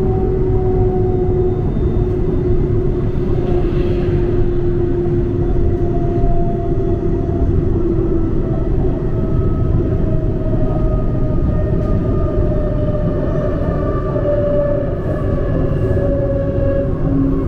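Huangpu Line 1 tram running, with a steady low rumble and several whining tones that slowly glide in pitch as it travels.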